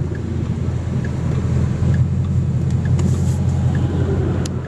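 Car driving on a highway, heard from inside the cabin: a steady low road and engine rumble, with a faint tick about once a second.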